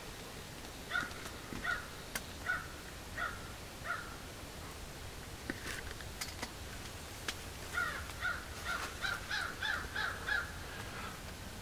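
A bird calling in two runs of harsh repeated notes: about five spaced notes, then after a pause a quicker run of about eight.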